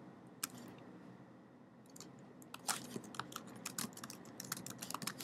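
Faint computer keyboard typing: a single keystroke shortly after the start, then a quick run of key clicks from about two seconds in.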